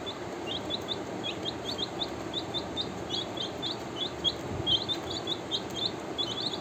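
A group of young chicks peeping continuously: short, high cheeps several times a second, overlapping, with no pause.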